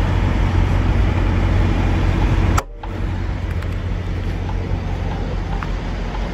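Diesel semi-truck engine idling, a steady low rumble with a noisy haze over it, breaking off briefly about two and a half seconds in.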